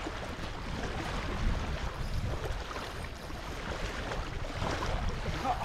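Steady outdoor wash of wind on the microphone and water at the reservoir shore, with a low rumble.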